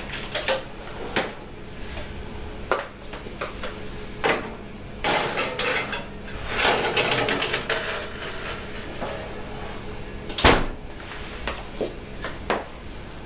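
Kitchen oven being loaded: a few clicks and knocks as the built-in oven door is opened, a metal baking tray scraping and clattering as it slides onto the rack, then the oven door shutting with a sharp knock, the loudest sound, about three-quarters of the way in.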